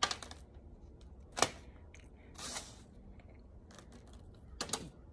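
A plastic spoon scraping and tapping toasted cornstarch powder onto a cornstarch chunk: a few sharp, crisp clicks, the loudest about a second and a half in, and a short soft hiss of falling powder about halfway through.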